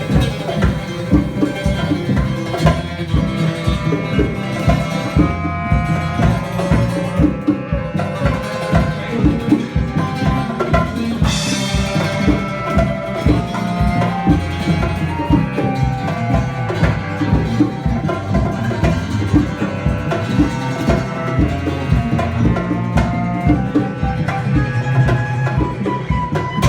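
Live band playing an instrumental piece, with fast, steady drumming under sustained melody notes, and a bright crash a little before halfway.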